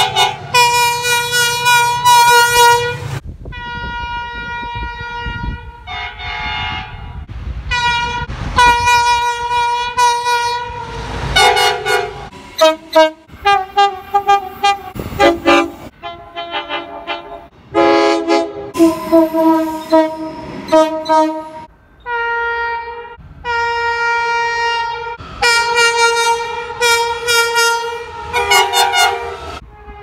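Train horns sounding a long series of short and long blasts, each several notes together, from more than one train in turn. A low locomotive engine rumble lies under the first few seconds.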